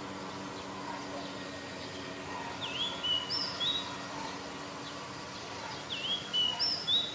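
A wild songbird sings a short phrase of a few clear whistled notes, the same phrase twice about three seconds apart, over a steady high hiss.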